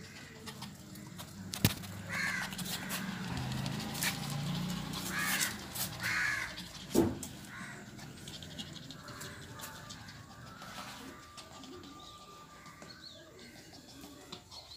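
A crow cawing three times in short calls, with two sharp knocks, the louder one about seven seconds in.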